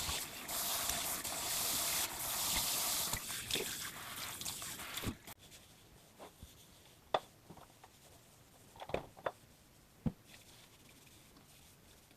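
Water running hard from a tap, shut off abruptly about five seconds in, followed by a few light clicks and taps.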